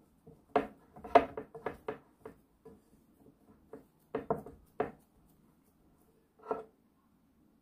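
Glass mixing bowl knocking and clinking on the countertop as cookie dough is pressed and kneaded by hand inside it: a quick run of knocks about a second in, a few more midway, and one last short rattle near the end.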